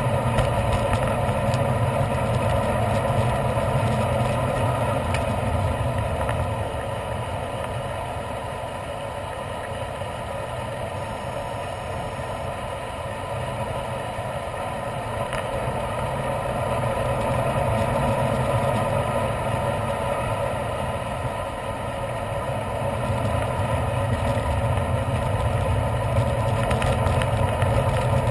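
Steady wind noise and rumble on an action camera's microphone as a bicycle is ridden along a paved road. It eases a little for several seconds partway through, while the ride passes through a rock tunnel.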